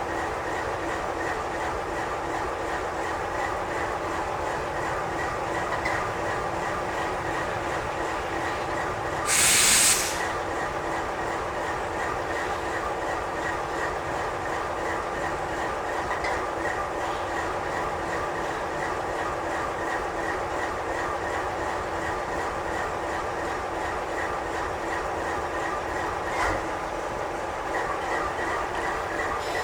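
Double-stack intermodal well cars rolling past: a steady rail rumble with a sustained, ringing wheel squeal of several tones. About nine seconds in there is a short, loud hiss, and a single knock comes near the end.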